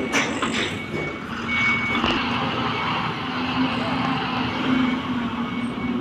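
Ashok Leyland AVTR tipper truck's diesel engine running steadily as the truck backs up slowly. Its reversing alarm beeps a few times.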